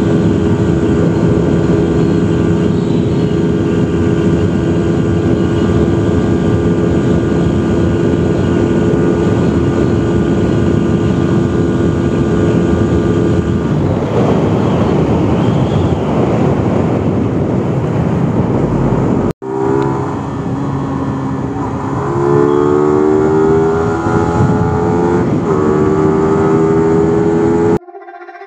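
Yamaha R15 V3's 155 cc single-cylinder engine under way at a steady speed, over a rush of wind and road noise. About two-thirds in the sound cuts out for a moment. The engine then comes back, rising in pitch and dropping back a couple of times as it pulls.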